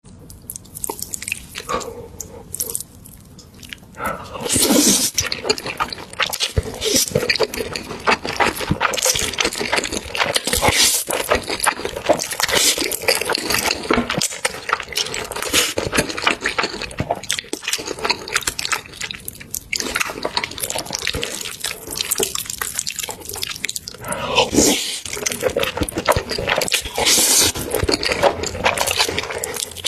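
Close-miked eating sounds: wet chewing and mouth clicks in a dense, irregular run, quieter at first and picking up about four seconds in.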